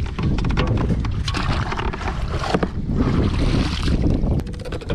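Kayak paddle blade splashing through the water in strokes, with wind buffeting the microphone as a steady low rumble and a few sharp knocks.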